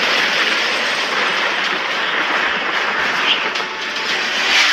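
Animated film sound effect of a helicopter flying through stormy wind: a steady, loud rushing noise.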